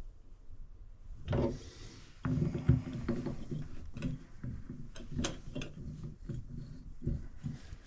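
Hand-work noises from tools and fittings: a short scraping burst, then many scattered clicks, knocks and rubbing from about two seconds in, as parts of a shower valve are fitted and tightened.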